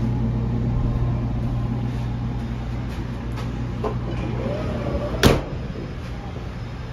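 Steady low hum of a GO Train bilevel coach in motion, heard inside its washroom, easing off a little partway through. About five seconds in, a single sharp click from the washroom door's lever handle or latch is the loudest sound.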